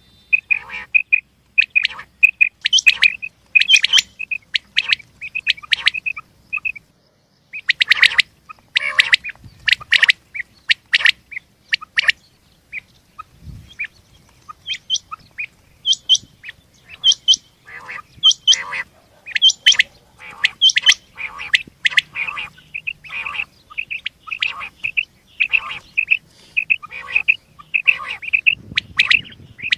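Rain quail and common quail calling: loud runs of short, sharp, high notes repeated several times a second, with a brief pause about seven seconds in.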